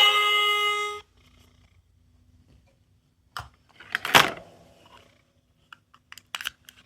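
Small electronic sound toy playing a bright chiming melody that cuts off about a second in. After that come a few light plastic clicks of handling and one short louder rasping sound about four seconds in.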